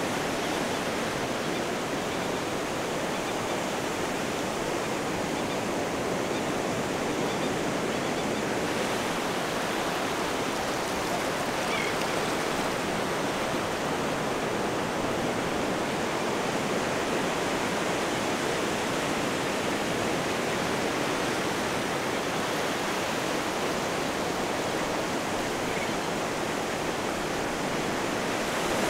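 Small surf waves washing steadily over a shallow, flat beach: a constant rushing of water with no distinct breaks.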